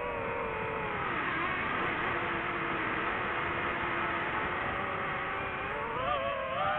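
DJI FPV drone's propeller motors whining. The pitch drops about a second in and holds low, then climbs again near the end as the throttle comes back up.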